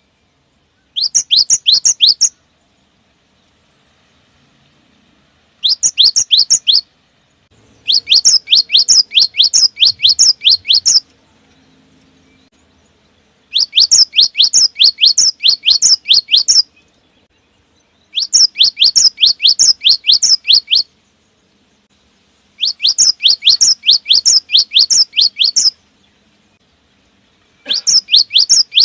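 Cinereous tit (gelatik batu) singing loudly: phrases of rapidly repeated, high, down-sweeping whistled notes at about five a second. There are seven runs of one to three seconds each, separated by brief pauses.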